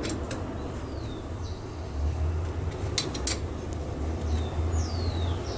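A wrench clicking a few times against the brake caliper's guide-pin bolt as it is tightened, over a steady low hum. A bird chirps twice, short falling notes.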